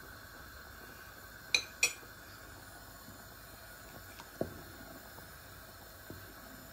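Two sharp clinks of a spoon against a steel cooking pot of boiling rice, close together about a second and a half in, then a softer knock a few seconds later as the rice is stirred with a wooden spoon.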